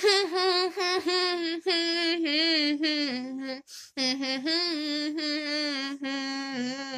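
A girl singing a song melody with her mouth full of water, lips closed, so it comes out as a hum. Two phrases of held, stepping notes, with a brief breath just before four seconds in.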